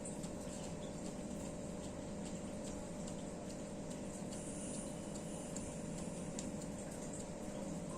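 Steady low room hum with faint, irregular ticking clicks.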